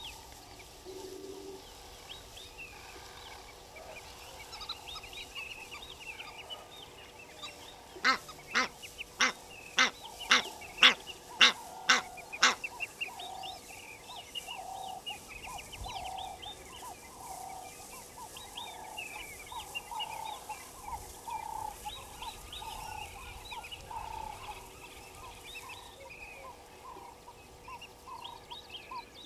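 Egyptian goose honking: a run of about ten loud calls, about two a second, midway through. Smaller birds chirp and call quietly throughout.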